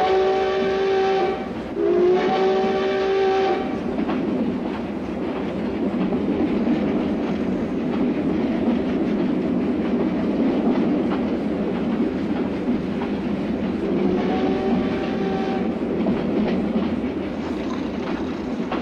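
Steam locomotive whistle blowing twice, about a second and a half each, then once more about fourteen seconds in, over the steady rumble and clickety-clack of a moving train.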